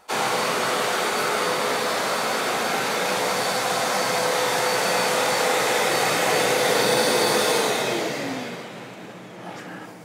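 Shop vacuum used as the track saw's dust extractor, running steadily with a whine, then shutting off about eight seconds in, its pitch falling as the motor winds down.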